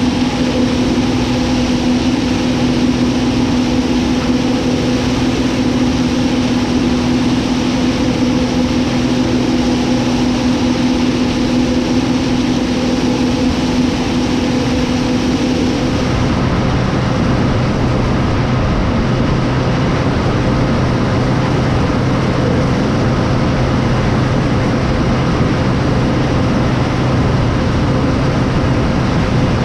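Tractor engine running steadily under load. About halfway through, the sound changes abruptly to a deeper, steady engine note.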